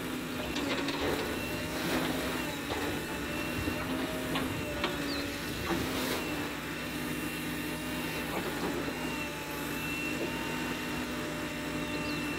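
JCB backhoe loader's engine running steadily as its backhoe arm digs and churns wet clay for brick-making, with a thin steady high whine and several knocks in the first half.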